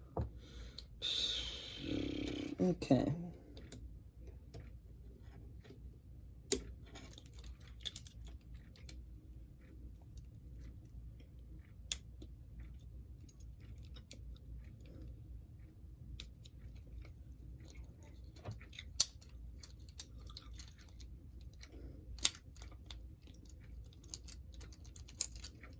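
Scattered small clicks and taps of parts and a screwdriver being handled while a model train locomotive is taken apart, with a few sharper single clicks spread through.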